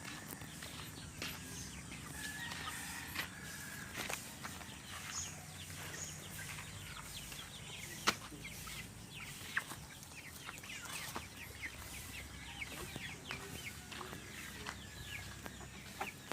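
Free-range chickens clucking softly, with many short sharp clicks scattered through. The loudest click comes about eight seconds in.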